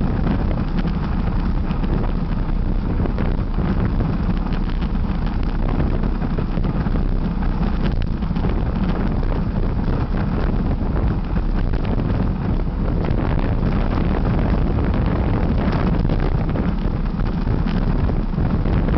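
Steady wind buffeting the microphone of a camera riding on a road bicycle at speed: a continuous low rumble with no let-up.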